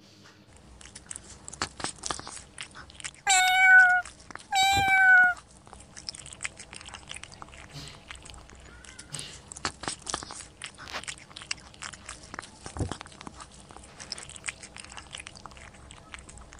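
Cat crunching and chewing pieces of dry biscuit, a steady run of small crisp crunches. About three seconds in it gives two loud meows in quick succession, each held briefly and falling a little in pitch at the end.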